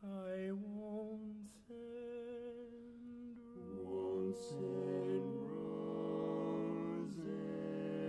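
Male barbershop quartet singing a cappella. After a brief silence, upper voices enter first, and lower voices join about three and a half seconds in, building to a full held chord. Short breaths are audible between phrases.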